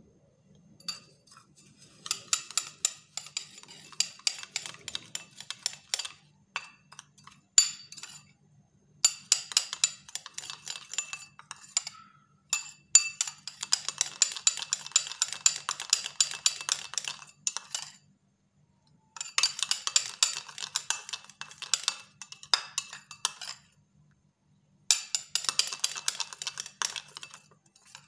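Metal spoon stirring a wet paste of ground coffee and lemon juice in a cut-glass bowl: rapid clinking and scraping against the glass in bouts of a few seconds, with short pauses between them.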